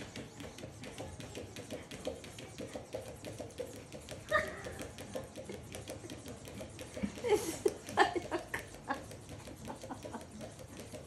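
A cat pawing and scrabbling at crinkly plastic packing inside a school backpack: a continuous crackling rustle of plastic, with a short squeak about four seconds in and louder bursts of crinkling around seven to eight seconds in.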